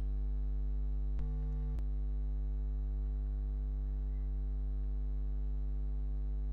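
Steady electrical mains hum under the recording, with two faint clicks about a second in.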